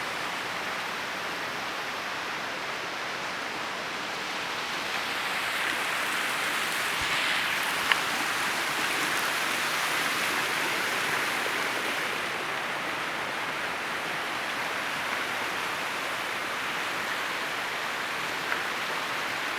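Gadelsha waterfall's falling water rushing steadily, swelling a little louder for a few seconds in the middle, with a sharp click about eight seconds in.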